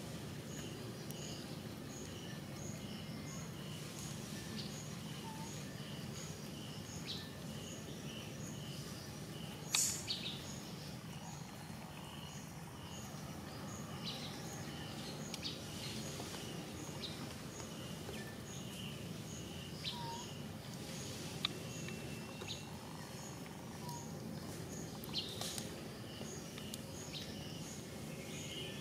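Outdoor ambience with a high chirp repeated evenly about every three-quarters of a second, a few scattered short chirps, and a single sharp click about ten seconds in.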